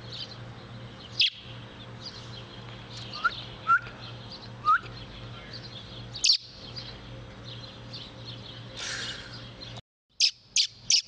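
Baby bird giving short, sharp high chirps at irregular intervals over a steady low electrical hum, with a quick run of three chirps near the end.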